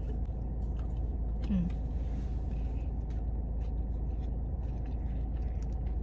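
A person chewing food with faint mouth clicks, and one short closed-mouth hum about a second and a half in, over a steady low rumble.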